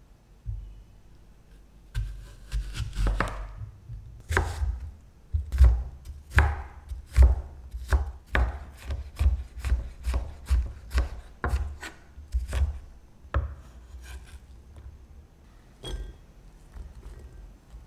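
Kitchen knife cutting and dicing an apple on a wooden cutting board: a run of sharp knife strokes knocking on the board, about two a second at the busiest, thinning to a few scattered knocks near the end.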